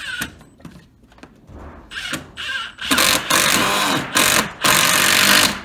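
Cordless drill run in bursts into wooden framing: a few short spurts, then two long runs in the second half, the motor pitch wavering under load.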